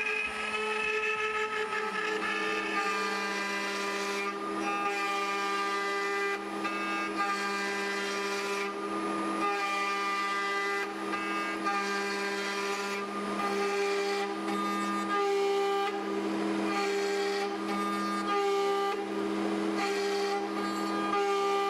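ShopBot Desktop CNC router carving American holly, its spindle running with a steady whine over the noise of the cut.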